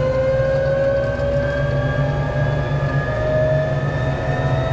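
BAC Strikemaster's Rolls-Royce Viper turbojet spooling up just after being started: a whine rising slowly and steadily in pitch over a steady low rumble, heard from inside the cockpit.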